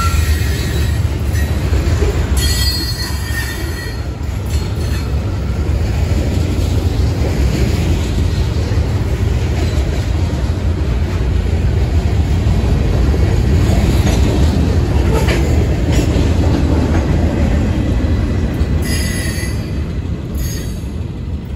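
Freight cars rolling past close by: a steady heavy rumble of wheels on rail, with brief high wheel squeals a few seconds in and again near the end.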